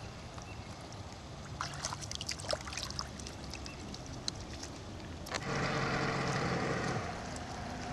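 Shallow water splashing and sloshing as a carp is let go by hand at the water's edge. About five seconds in, after a cut, a louder steady mechanical whirring hum with a held tone starts abruptly and eases down near the end.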